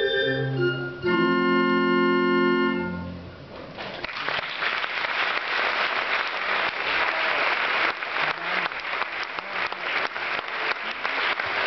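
Pipe organ playing the closing chords of a piece, ending on a full chord held for about two seconds that then stops and fades. Audience applause starts about half a second later and goes on steadily.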